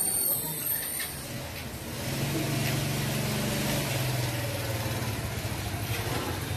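A high, thin electric whine fades out about a second in. From about two seconds in, an engine runs steadily with a low hum.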